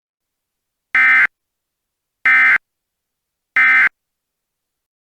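Emergency Alert System SAME end-of-message data bursts: three identical short buzzy digital warbles, each about a third of a second long and about 1.3 s apart. They mark the end of the alert.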